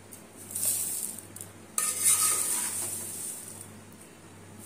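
Crisp, dry thin-poha chivda being scooped out of the pan into a serving dish, a rustling, crackly hiss of flakes with light scraping of the utensil on metal. It comes in two spells, a short one near the start and a longer one starting suddenly just under two seconds in and fading.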